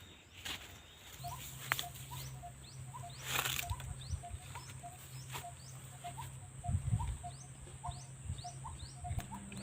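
A small animal's short chirping call repeated about twice a second, over a steady low hum that comes in about a second in, with a few faint clicks.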